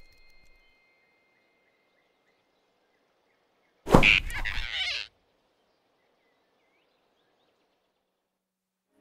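Cartoon sound effect of a sudden grab: a quick whoosh and thud about four seconds in, lasting about a second, as the big rabbit snatches the flying squirrel off the branch. Otherwise near silence.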